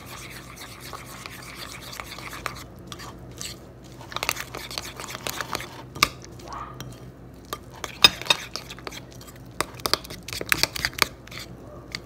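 A metal spoon stirring a thick oat and almond-flour batter in a small ceramic bowl: a continuous scraping, with irregular clinks of the spoon against the bowl that come thicker in the second half.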